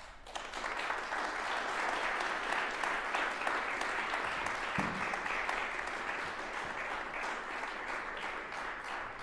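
Audience applauding, starting abruptly and holding steady, easing off slightly near the end.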